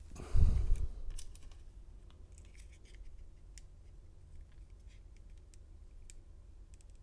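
A heavy handling thump with a scratchy rustle, about half a second long, starting just after the beginning. Then scattered small clicks and scratches as the small lock pins are handled and measured on the bench.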